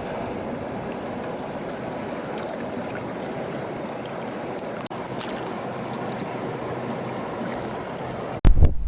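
Steady rush of flowing river water. A little before the end it cuts abruptly to loud, gusty wind buffeting the microphone.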